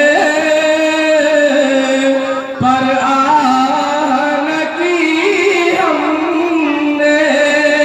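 A man's voice singing a naat, a devotional Urdu poem in praise of the Prophet, into a microphone, drawing out long held notes with melismatic ornaments. There is a brief break about two and a half seconds in, and the melody climbs higher around the middle before settling back.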